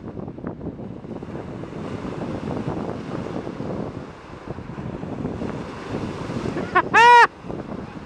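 Small Lake Erie waves breaking and washing onto the shore, with wind on the microphone. About seven seconds in comes a single short, loud cry that rises and falls in pitch.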